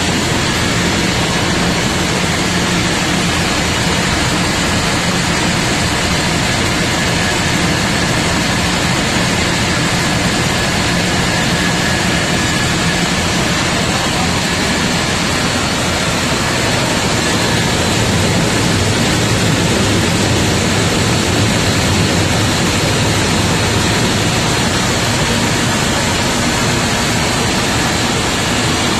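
Rice mill machinery running: a loud, steady mechanical din of motors and grain shaking through the sorting trays, without a break.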